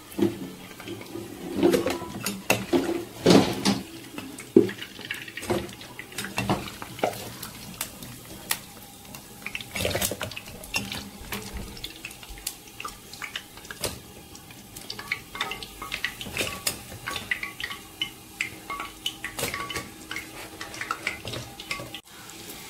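A metal slotted skimmer scraping and knocking against a frying pan and a plastic colander as fried puff puff (dough balls) are scooped out of hot oil and dropped in, in many irregular clicks and clunks. Oil sizzles faintly underneath.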